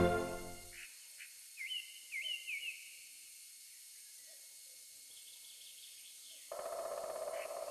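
A few quick rising bird-like chirps over faint background noise. Near the end a steady whooshing noise starts suddenly.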